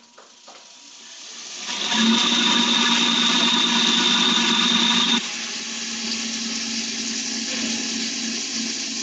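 Large commercial cotton candy machine switched on with its head loaded with sugar. The spinner motor runs up over the first two seconds to a loud, steady whir with a high whine in it. It drops noticeably in level about five seconds in and keeps running.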